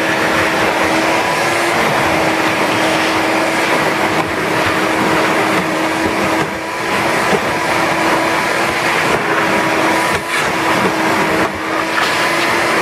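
Vacuum cleaner running steadily with a motor whine, its hose nozzle drawn back and forth over car floor carpet; the sound dips briefly a few times.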